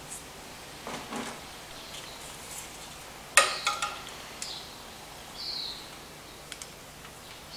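Small metallic clicks and taps of hand tools and a 7 mm glow-plug terminal nut being worked off in a diesel engine bay. One sharp metal click a little over three seconds in is the loudest, followed by a few lighter clinks, with a softer knock and rustle near the start.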